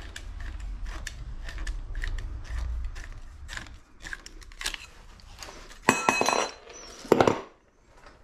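Metal tools and copper pipe fittings clinking and knocking as they are handled, with two louder metallic clanks about six and seven seconds in, the first ringing briefly.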